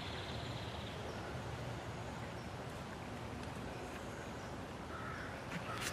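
Quiet woodland ambience: a steady low rumble and hiss, with a brief faint bird call about five seconds in.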